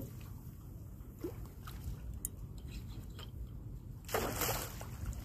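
Water sloshing and lapping against a small boat's hull over a low steady rumble, with a louder splash about four seconds in.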